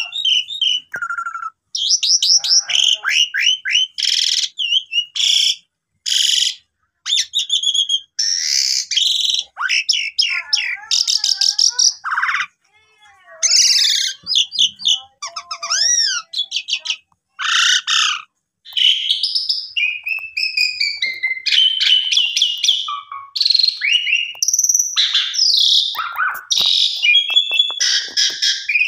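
A jalak suren (pied starling) singing a long, varied song of loud whistles, sliding notes, rapid trills and harsher chattering phrases, with short breaks between bursts.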